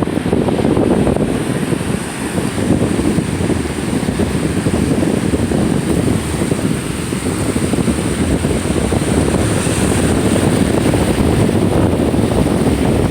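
Wind buffeting the microphone in a steady loud rumble, with the wash of ocean surf beneath it.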